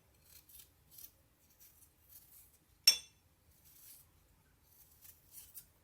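Fresh ginger root being peeled: soft, repeated scraping strokes, about one or two a second. A single sharp, ringing clink sounds about three seconds in.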